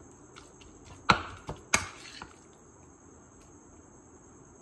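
Two sharp clicks of a spoon knocking against a small bowl, a little over half a second apart, about a second in, with a faint steady high whine underneath.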